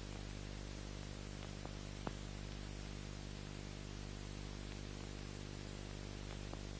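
Steady low electrical hum under a constant hiss of background noise, with a faint click about two seconds in.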